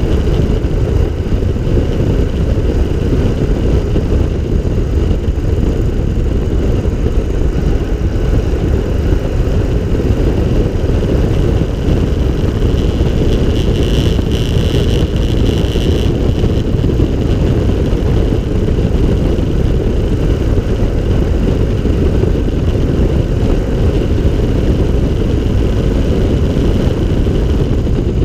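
Open three-wheeler cyclecar driving steadily on the road: engine running under a constant rush of wind and rumble over the car-mounted microphone. A brief higher-pitched tone rises above it about halfway through.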